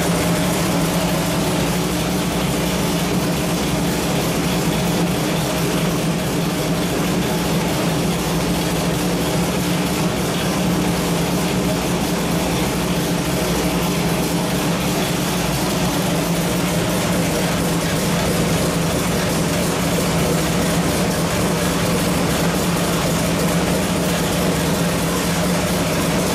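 A 434 cubic-inch small-block Chevrolet V8 built for 514 hp, running on an engine dyno at a steady speed with no revving.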